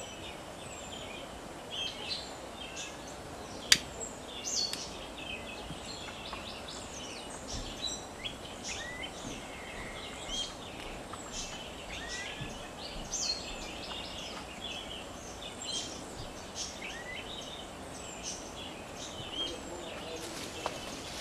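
Many birds chirping and calling over a steady background hiss: short high chirps with a few downward-sweeping calls, all through. A single sharp click about four seconds in is the loudest sound.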